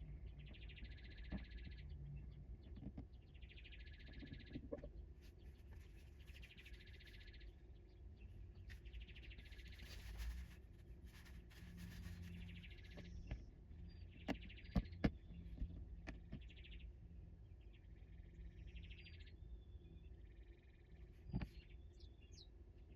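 Birds chirping in repeated calls about a second long, every one and a half to two seconds, over a faint low background rumble, with a few sharp clicks past the middle.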